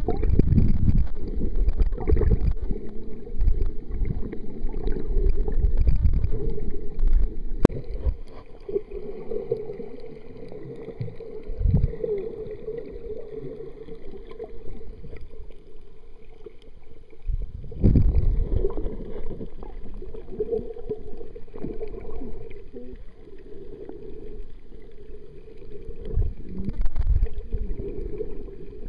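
Muffled underwater water noise heard through a submerged camera: a low rumble with swishing and gurgling. It is louder for the first seven seconds, swells again about 12, 18 and 27 seconds in, and has a single sharp click near eight seconds.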